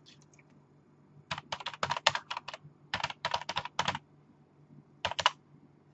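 Typing on a computer keyboard: a run of quick keystrokes about a second and a half in, a second run around three seconds in, and a short burst near the end.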